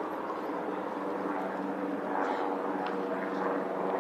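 Steady engine drone with a low, even hum.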